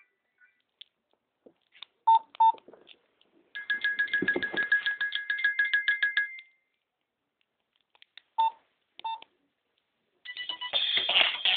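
Nokia X2-02 mobile phone playing its ringtones and alert tones through its small speaker, recorded on another phone. There are two short beeps, then a fast-pulsing two-note tone for about three seconds, then two more beeps. Near the end a busier electronic ringtone begins.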